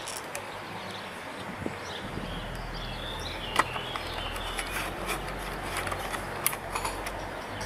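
Outdoor background noise through an open balcony door, with a short chirping call, likely a bird, around three seconds in, and a few sharp clicks and knocks, the loudest a little after three and a half seconds and again around six and a half.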